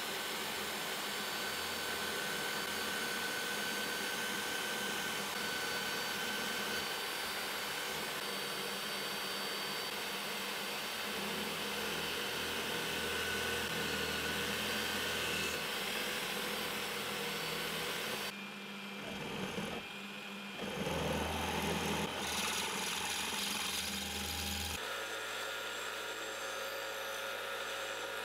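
A running power tool working on brass lamp parts: a steady abrasive grinding noise with a faint whine. The sound changes abruptly a few times in the last third.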